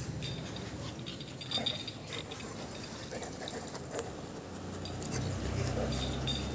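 A pug puppy and a rottweiler moving and playing on a hard tiled floor, with scattered small clicks and light jingly ticks. Low rubbing from the phone brushing against fur and clothing runs from about five seconds in.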